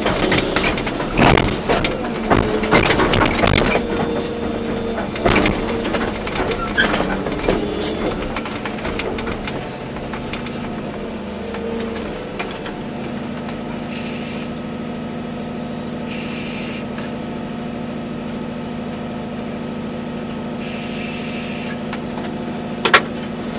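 Volvo EC240B excavator's diesel engine working under load, with frequent clanks and knocks for about the first ten seconds, then running steadily at a constant speed. A single sharp knock comes near the end.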